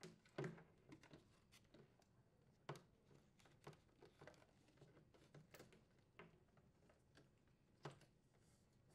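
Near silence with faint, scattered clicks and taps of plastic parts being handled: the refrigerator's plastic ice maker cover being moved as its wires and rubber grommet are worked into place. The clearest clicks come about half a second in, a little under 3 seconds in, and near the end.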